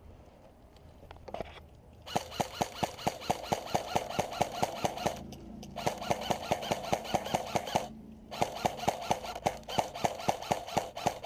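Airsoft electric gun (AEG) firing long full-auto bursts: a rapid, even clatter of shots over the whine of its gearbox motor. It comes in three bursts, starting about two seconds in, with short pauses between them.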